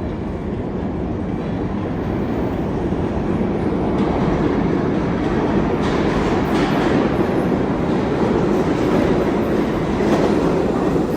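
New York City subway train running on the rails: a steady rumble and rail noise that builds over the first few seconds and then holds, with some wheel clatter.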